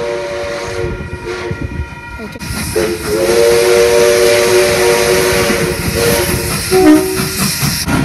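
Steam locomotive's chime whistle sounding a chord: a blast that ends about a second in, then a long blast from about three seconds to nearly seven, with a brief toot just after. A loud hiss of steam runs under the long blast.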